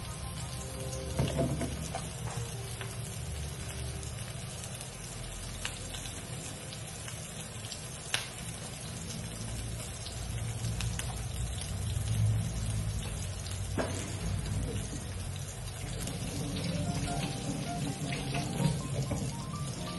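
Steady sizzling hiss from a frying pan of cooking oil heating on a lit gas burner, with a few light clicks. A background music melody plays over it at the start and again near the end.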